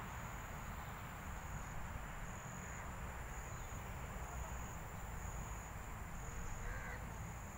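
Insects trilling steadily at a high pitch, growing louder about once a second, over a low rumble.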